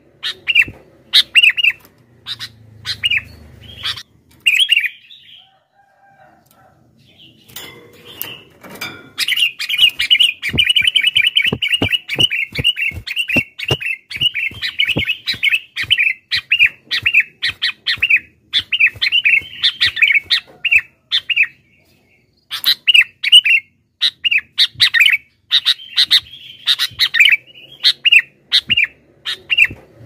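Sooty-headed bulbul chirping noisily in quick runs of short calls, with a dense, fast run about ten seconds in and brief pauses near the start and middle.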